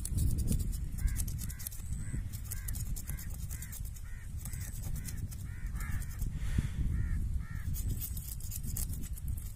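A bird calling over and over, short calls about two a second, over a steady low rumble.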